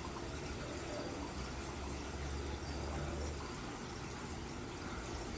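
Steady background noise like running water, with a low hum underneath.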